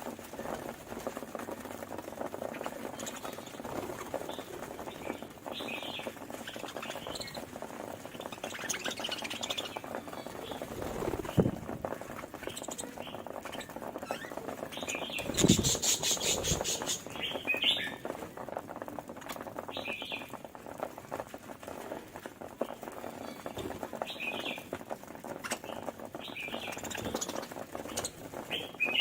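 Pet budgerigars chirping and chattering, with short chirps every second or two over a steady background chatter: budgie courtship calling. About halfway through comes one louder, harsh, rattling burst with a low thump.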